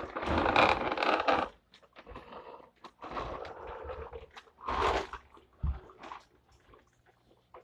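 Scraping and rustling of a plastic toy camper and dolls being handled right against the microphone, in several bursts, with a short knock a little before the end.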